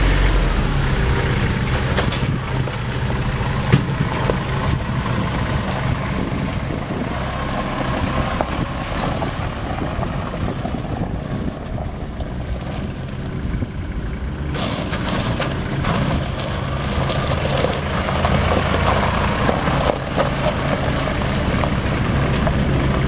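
Kubota L2900 compact tractor's diesel engine running steadily as the tractor drives, with its tyres crunching over loose gravel. A single sharp click comes a little under four seconds in.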